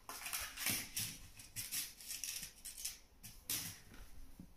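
Fishing line and small terminal tackle being handled in the fingers while a rig is made up: soft rustles and small clicks in irregular short bursts.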